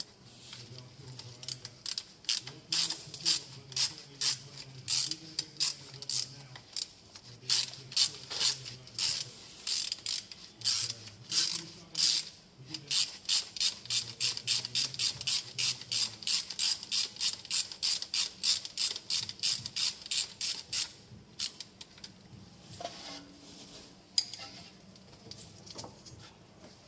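Socket ratchet wrench clicking as it is worked back and forth on a bolt: a long run of sharp clicks that grows quicker partway through and stops a few seconds before the end, followed by a few faint knocks.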